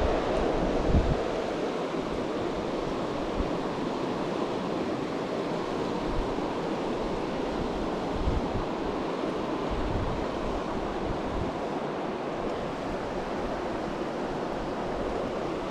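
Mountain stream rushing over shallow boulder riffles, a steady, even wash of running water.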